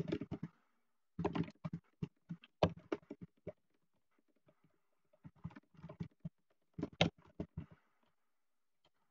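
Typing on a computer keyboard: three quick runs of keystrokes with brief pauses between them.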